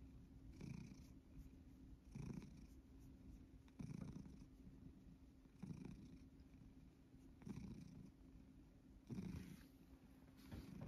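Domestic cat purring contentedly while being stroked: a faint, steady purr that swells with each breath, about every one and a half to two seconds.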